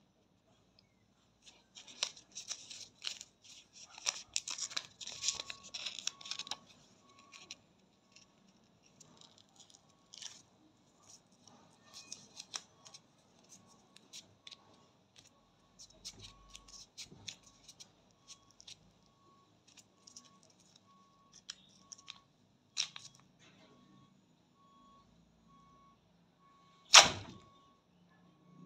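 Crinkling and rustling of a ready-to-use wax strip being handled and pressed onto the underarm, densest in the first few seconds. Near the end comes one sharp, loud rip as the strip is pulled off the skin.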